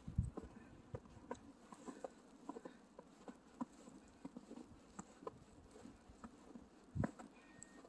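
Faint footsteps in snow, short soft steps at about two a second, with one louder thump about seven seconds in.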